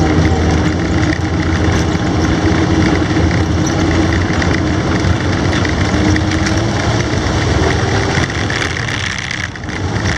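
Studebaker M29C Weasel's six-cylinder flathead engine running steadily as the tracked vehicle drives along, heard from on board. The sound drops briefly near the end.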